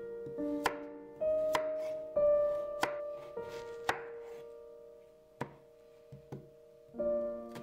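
Chef's knife chopping carrot and then onion on a wooden cutting board: about six sharp knocks of the blade on the board, roughly a second apart, over light piano background music.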